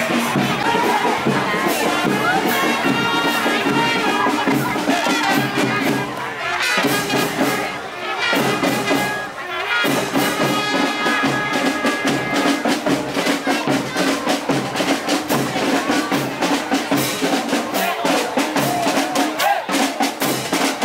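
Marching band playing in a street parade: brass horns sounding held notes over a steady drum beat.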